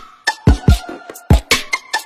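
Background electronic music with a hip-hop beat: deep kick drums that drop in pitch, sharp snare and hi-hat hits, and short plucked synth notes.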